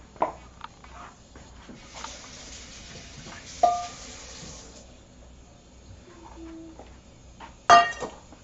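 Metal kitchen bowls and pans being handled and set down on a granite countertop: a sharp knock just after the start, a ringing clink about midway, and a loud metallic clang that rings on briefly near the end. A steady hiss runs for about three seconds in the middle.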